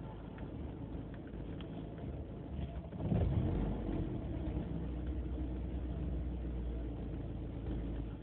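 BMW E36 318ti four-cylinder engine idling roughly, with a sudden louder surge about three seconds in. The rough idle has persisted despite a new idle control valve.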